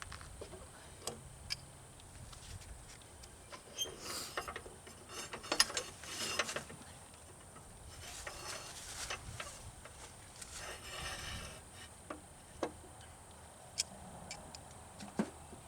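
Metal tools and parts clinking, rattling and scraping in scattered clicks and short clusters, as the tilt cylinder of a Kioti KL130 loader is worked free and removed.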